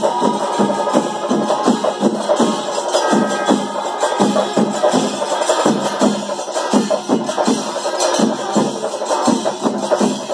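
Kerala chenda melam: chenda drums struck in a steady rhythm of about three beats a second, with cymbals. A held high note sounds over it for the first second or so.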